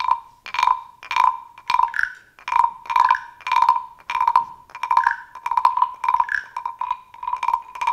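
Several wooden frog guiros (frog blocks) scraped along their ridged backs with sticks at the same time, making a chorus of rasping croaks, about two croaks a second. A higher-pitched block croaks in among the lower ones.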